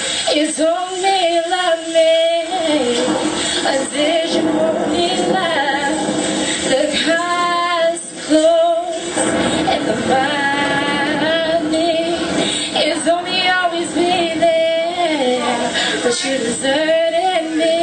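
A woman singing a melody live into a handheld microphone, with long held notes that bend up and down, over backing music.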